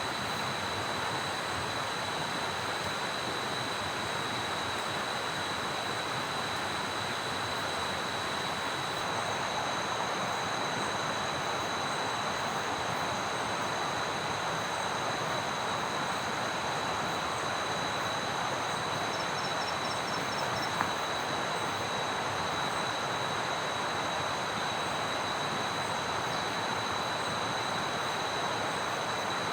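Steady rush of heavy rain and running water, with a thin, steady high-pitched whine above it and a brief run of high pips about two-thirds of the way in.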